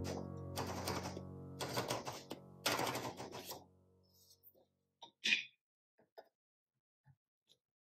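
Soft music with sustained notes fades out over the first few seconds, over three rasping mechanical sounds from an Olympia manual typewriter whose carriage and platen are being worked by hand. After that there are only a few faint light taps.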